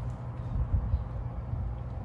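Wind buffeting the microphone: a low, uneven rumble that gusts harder about a second in.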